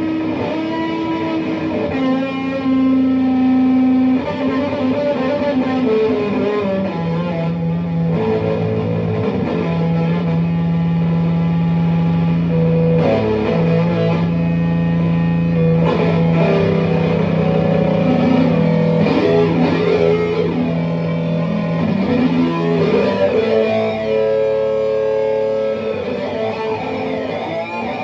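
Electric guitar played through an EarthQuaker Devices Data Corrupter, a monophonic harmonizing PLL fuzz pedal, giving fuzzy, synth-like tones. The notes are held for several seconds each and shift in pitch now and then, with a long low note through most of the middle.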